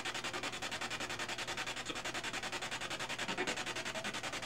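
Spirit box sweeping radio stations: a steady hiss of static chopped into a fast, even pulsing, played through a small puck speaker wired to a phone.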